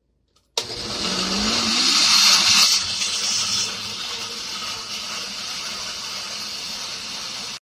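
Oster countertop blender switched on about half a second in, its motor picking up speed as it grinds green chillies, garlic, ginger and coriander with a little water into a paste; loudest over the first few seconds, then running at a steadier level until it cuts off abruptly near the end.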